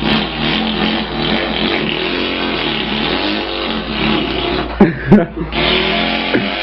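A man imitating an engine with his mouth: a continuous buzzing hum that wavers in pitch, broken by two sharp pops about five seconds in, then running on steadier.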